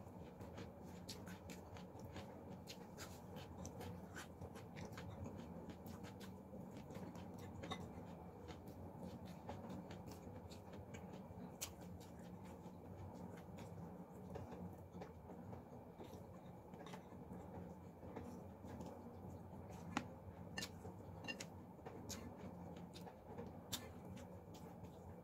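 Quiet eating sounds: chewing, with scattered small clicks and crackles as fried chicken is torn apart by hand over a plate, over a faint steady hum.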